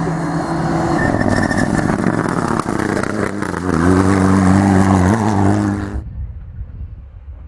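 Turbocharged Mitsubishi Lancer Evolution rally car driving hard on loose gravel: engine revving, pitch rising and falling, with gravel and dirt spraying, loudest about four seconds in. About six seconds in the sound cuts off suddenly to a faint, distant engine.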